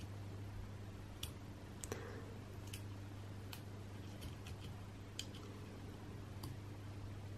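Faint clicks and taps of small plastic toy parts being handled: a Playmobil figure's ear-defender accessory being worked onto the figure's head and hat, about nine scattered clicks over several seconds.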